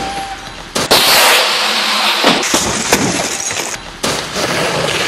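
Rally car rolling over on a tarmac road: the metal body slams and scrapes against the road in a series of crashes, the loudest about a second in, with breaking glass.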